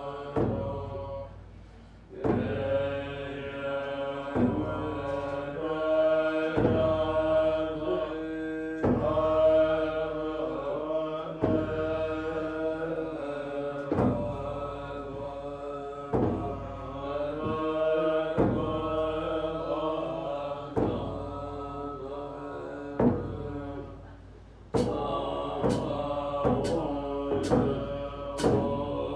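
Tibetan Buddhist mantra chanted in a melodic line, the same phrase repeating about every two seconds. Sharp clicks come in about once a second near the end.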